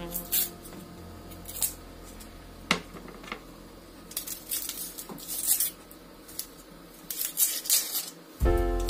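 Kitchen knife peeling the dry, papery skin off an onion: scattered short scrapes, crackles and light taps of the blade on the onion, with busier clusters in the second half. Music comes in near the end.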